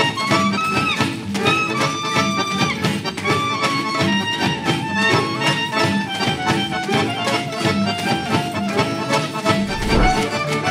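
Folk dance music from a live stage band: a melody of held and moving notes over a steady, even beat.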